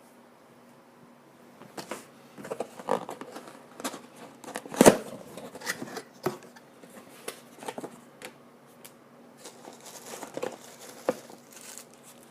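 Dash cam packaging being handled and opened: irregular clicks, rustles and crinkles of cardboard and plastic, with one sharp knock about five seconds in.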